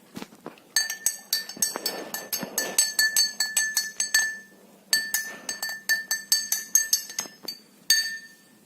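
A spoon clinking repeatedly against the side of a bowl while stirring honey into a herbal decoction. The clinks are quick and ringing, in three runs with short pauses between them.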